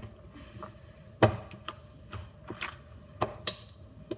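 Chunks of ice knocking and clacking against a hard surface as they are handled. There is one sharp loud knock about a second in, then several lighter ones.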